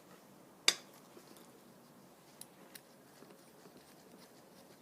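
Small TIG torch parts being handled: one sharp click under a second in, then a couple of faint ticks, as the cup and its adapter are fitted onto a gas lens.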